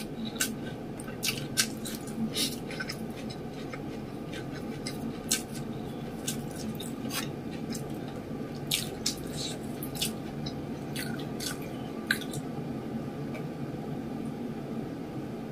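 Close-miked wet mouth sounds of eating with the fingers: scattered short smacks and clicks of lips, chewing and finger-licking, thinning out after about twelve seconds, over a steady low hum.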